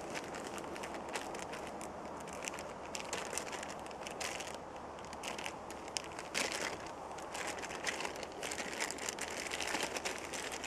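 A plastic bag crinkling and rustling as it is handled, with irregular small crackles that come thicker in the second half.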